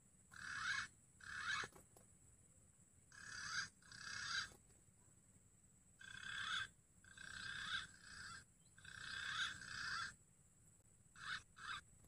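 Green pigeon (punai) calls: a run of whistled calls, each half a second to a second long and swelling as it goes, coming in pairs and short runs with gaps between. Such calls are what the punai lure is set up to make, drawing wild punai to the lime sticks.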